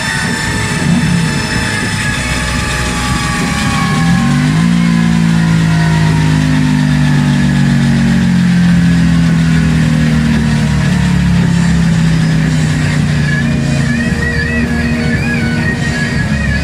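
A high whine from the motorcycle dyno run falls slowly in pitch over the first few seconds as the bike and roller wind down. Guitar-led music comes in about four seconds in and carries on.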